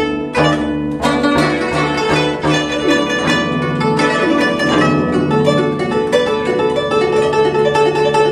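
Guzheng (Chinese zither) played solo: fast plucked notes ringing over the bass, with a low note repeated about four times a second at first, then a denser flurry of notes over a held low note from about halfway through.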